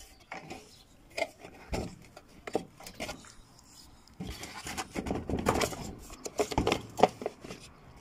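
Plastic clicks, knocks and rubbing as the plastic detergent dispenser of a front-load washing machine is handled and worked loose. A busier run of scraping and knocking fills the second half, with the sharpest knock near the end.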